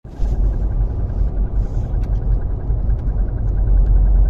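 Audi A1 with its S-tronic gearbox running, giving a steady low rumble with a few faint clicks: the odd noise that appeared after the gearbox was taken apart and reassembled to replace a shift fork.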